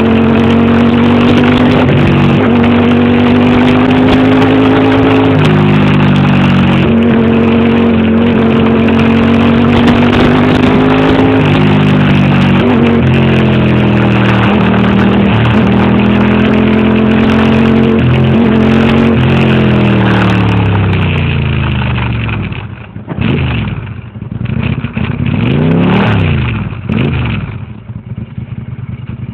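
Ducati motorcycle engine running under way with wind rush, its pitch dropping in steps at several gear changes. About twenty seconds in it slows and the wind fades, then a few short revs rise and fall before it settles to a lower, quieter running near the end.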